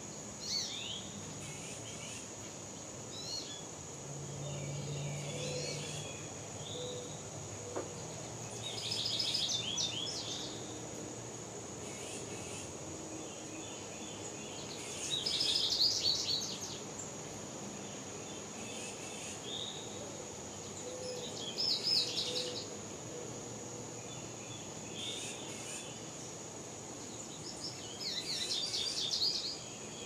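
A songbird singing the same short, rapid phrase about every six seconds, with softer chirps between, over a steady high-pitched drone of insects.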